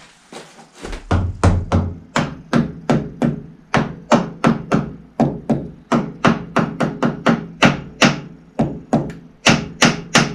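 Steady hammer blows on the Fordson Major's engine during cylinder head fitting: a long, even run of sharp knocks, about three a second, starting about a second in.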